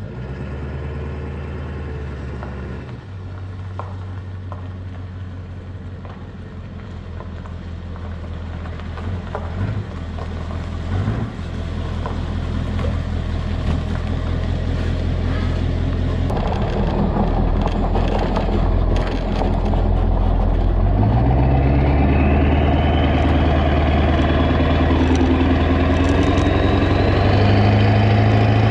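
A 7.3 Powerstroke V8 turbo-diesel with a 3-inch straight pipe, running and moving off, getting louder through the clip. Its pitch rises as it accelerates near the end.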